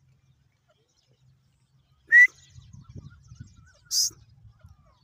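Grey francolin (dakhni teetar) giving two short, sharp calls about two seconds apart, the second higher-pitched than the first.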